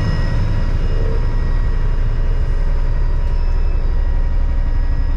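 Fishing boat's engine running steadily, a constant low rumble with a faint steady whine above it, heard inside the wheelhouse.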